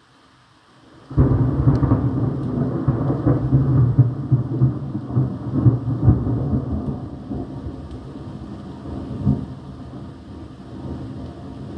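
A thunderclap breaking suddenly about a second in, then a long low rumble that slowly dies away.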